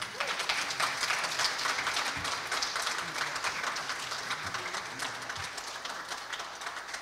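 Congregation applauding right as the final piano chord ends. The clapping is dense at first and slowly thins out toward the end.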